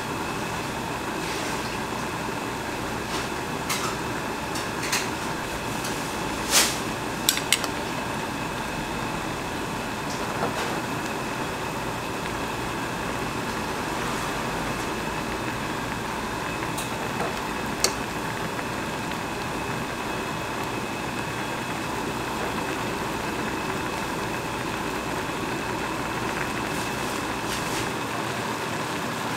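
Tteokbokki broth bubbling steadily at a boil in a shallow pot on a portable gas burner. A few sharp clicks come about six to eight seconds in.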